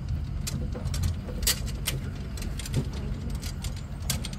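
Vehicle driving slowly over a rough dirt track: a steady low engine rumble with frequent clicks and rattles from the bumps.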